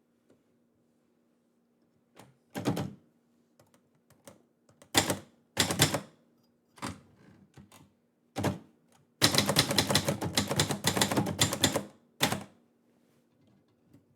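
Manual typewriter typing, the type bars striking the paper. A few separate keystrokes at first, then a quick run of strikes about nine seconds in that lasts some three seconds, and a last strike after it.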